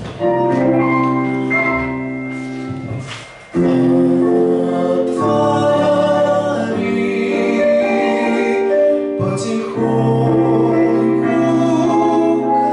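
A man singing a slow Russian romance in long held phrases, with accompaniment.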